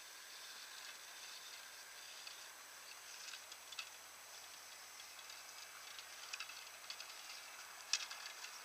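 Faint steady high hiss with scattered light clicks and ticks, the sharpest one near the end.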